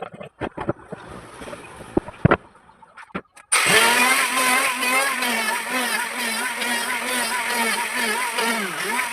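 A few sharp knocks and clicks of handling wood and tools, then an electric power tool's motor switches on suddenly about three and a half seconds in and runs at steady speed, its pitch dipping briefly near the end as it takes load.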